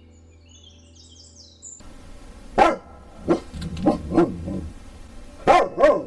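Dog barking in a string of short, sharp barks, about six loud ones with gaps between them, starting about two seconds in. Before that, brief high bird chirps.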